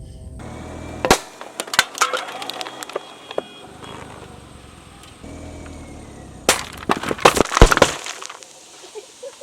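Car tyre rolling onto drink cans and crushing them: a low rumble of the rolling car, then a burst of sharp crunching and crackling. This happens twice.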